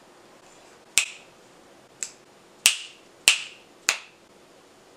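Two people snapping their fingers: five sharp snaps at uneven intervals over about three seconds.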